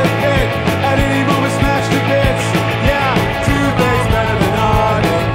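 Rock music soundtrack with a steady drum beat.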